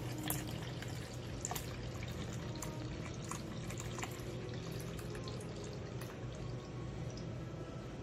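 Cream pouring in a thin stream into a plastic pitcher already partly filled with cream, with small drips and plops scattered throughout.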